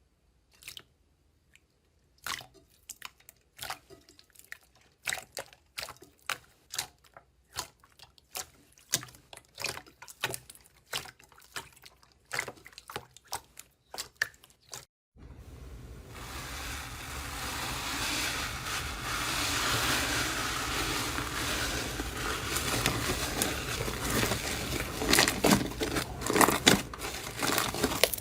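Slime being squeezed and poked: a run of sharp, irregular wet clicks and pops, a few a second. About halfway through it changes abruptly to a steady crackling squish, with louder pops near the end.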